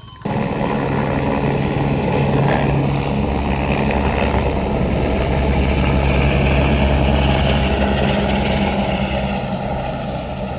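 Engine running steadily: a loud, even drone with a strong low hum that begins abruptly and holds without change in speed.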